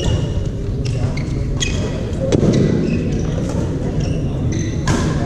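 Badminton rally: rackets striking the shuttlecock several times, sharp hits echoing in a large hall, with short squeaks of court shoes over a steady background din of the hall.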